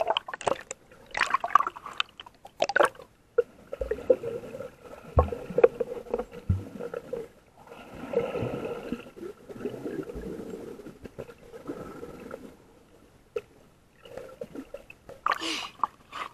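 Seawater sloshing and gurgling around a camera held just under the surface, heard muffled as if underwater, with sharp splashes in the first few seconds and another near the end.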